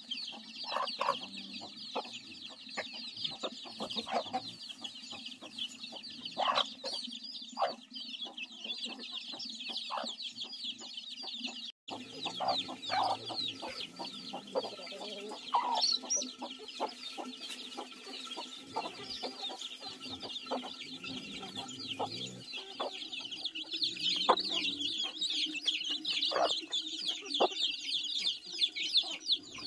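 A brood of chicks peeping in a constant high chorus while the hens give short clucks, as the flock feeds on scattered grain.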